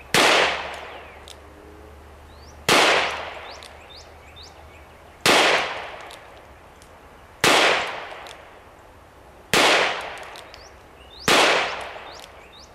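Six gunshots from a Smith & Wesson .357 Magnum revolver firing .38/.357 shot shells, spaced about two seconds apart, each followed by a short echo that fades away.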